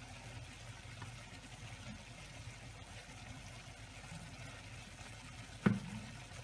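Diced ham simmering in vegetable stock in a frying pan, a faint steady bubbling, with one sharp knock a little over five and a half seconds in.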